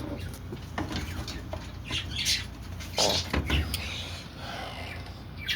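Irregular clicks, light knocks and scrapes of parts and tools being handled during work on a washing machine, with a longer scraping rustle about three seconds in.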